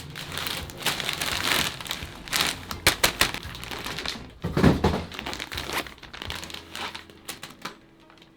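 A mailed package's wrapping being handled and opened, crinkling and crackling, with a heavier thump about four and a half seconds in.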